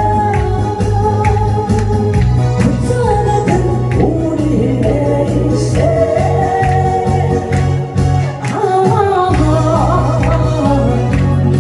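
A singer performing a trot song over a backing track with a steady beat and bass line; the bass drops out briefly near the end.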